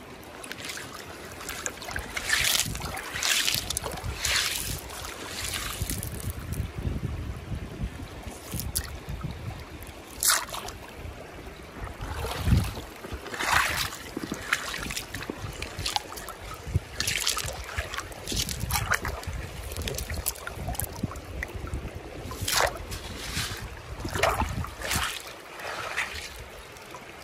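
Shallow river water splashing and sloshing in irregular bursts, over a low rumble of wind on the microphone.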